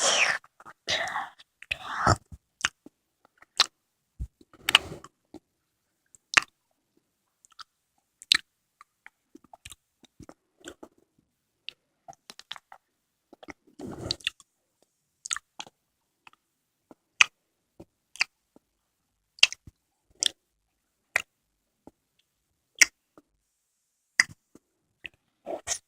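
Close-miked eating of konjac jelly: sharp, wet mouth clicks and chewing, coming irregularly about once a second, with a longer run of chewing about a quarter of the way through and again about halfway.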